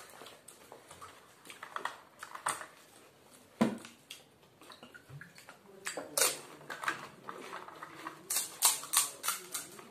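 Crisp fuchka (pani puri) shells being cracked open and eaten: a run of sharp crunches and clicks with chewing, busiest near the end.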